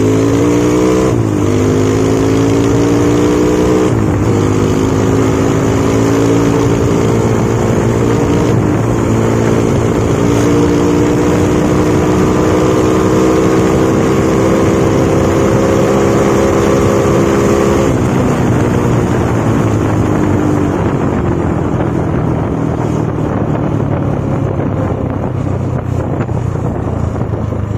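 Single-cylinder motorcycle engine running on a Honda Tiger carburettor, heard while riding: it pulls up and shifts up twice in the first few seconds, holds a steady cruise, then eases off about two-thirds of the way in, leaving mostly wind and road noise near the end.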